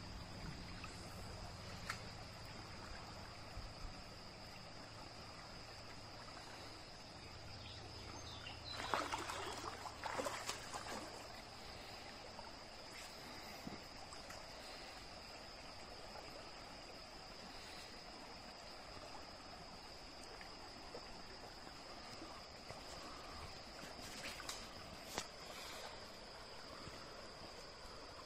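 Shallow stream trickling with a steady high-pitched insect buzz over it; a few brief splashes of water about nine to eleven seconds in and again near the end.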